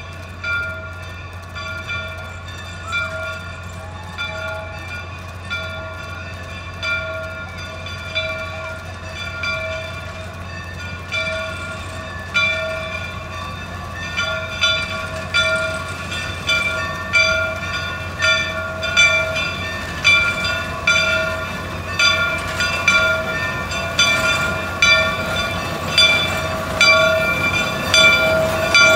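Steam locomotive bell ringing steadily about once a second, growing louder as the line of Shay geared steam locomotives draws up close, over their steady low rumble.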